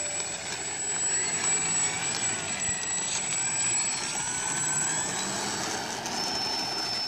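Electric motor and propeller of a Parkzone T-28 Trojan radio-controlled model plane running under throttle while it moves along the ground. It gives a steady high-pitched whine with gliding pitch changes, and the whine steps down in pitch about six seconds in.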